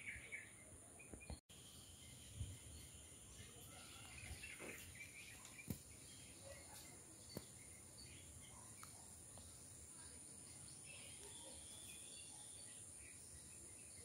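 Faint garden ambience: a steady high insect drone, with scattered faint bird chirps and a few soft clicks.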